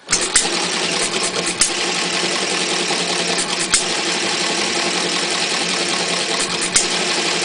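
One-third-scale model Economy hit-and-miss engine with buzz-coil ignition, catching as soon as its flywheel is spun by hand and then running steadily with a rapid mechanical clatter. A few sharper cracks stand out now and then.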